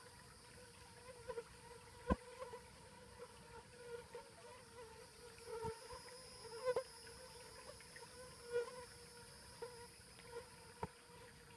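Faint, steady buzzing of a flying insect near the microphone, a slightly wavering hum, with fainter high-pitched insect trilling behind it. A few light clicks of footsteps on the muddy bank come through now and then.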